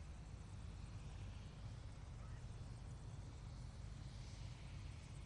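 Helicopter running during its start-up, heard as a faint, steady low rumble of engine and rotor.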